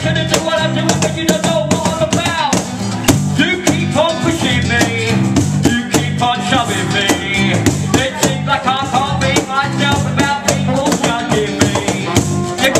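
Live rap with a small acoustic band: a rapper's vocal through a microphone and PA over strummed acoustic guitar, bass guitar and drum, in a steady groove.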